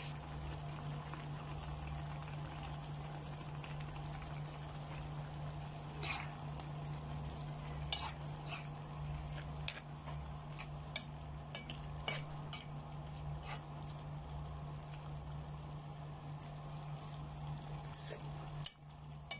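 Sweet-and-sour sauce with carrot and onion strips sizzling and bubbling in a pan, a steady hiss over a low hum. Scattered sharp clicks come through from about a third of the way in.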